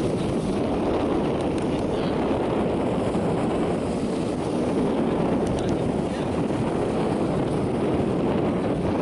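Steady rushing noise of wind buffeting the microphone over the even running of a boat under way on the water.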